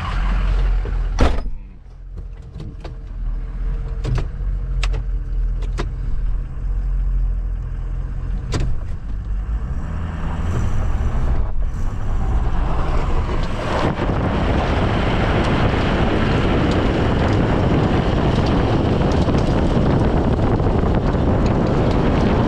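Truck engine running with steady low tones and a few sharp clicks and knocks. From about two-thirds through, a louder, even rush of noise comes up and holds.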